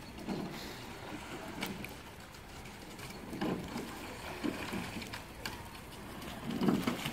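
Coxed four rowing shell under way: oars knocking in their gates and blades splashing in the water at each stroke, about every two seconds.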